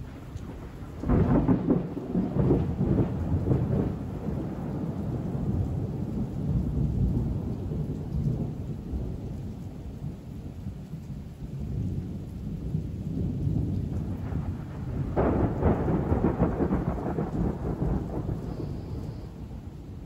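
Thunder: two long rolling peals, the first starting about a second in and the second about fifteen seconds in, each rumbling on for several seconds over steady rain.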